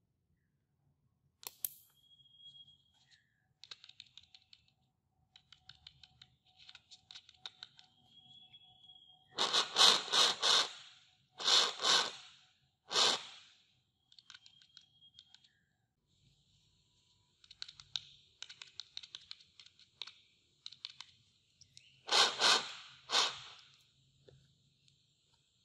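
Small loudspeaker of a homemade PAM8403 electret-microphone amplifier being tested after it is switched on by its push button. It gives scattered clicks, a few brief high whistles, and several loud bursts of amplified scratching and tapping noise in two clusters.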